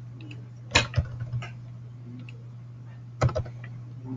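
Computer keyboard keystrokes: a few sharp clicks in two short clusters, about a second in and again just past three seconds, over a steady low hum.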